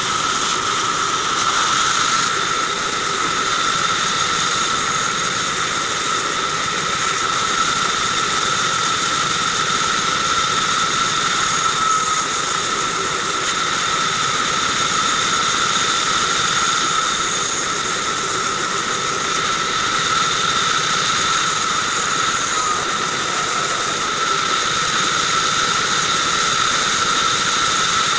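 Vertical band saw running with a steady whine while blocks of wood are fed through the blade and cut.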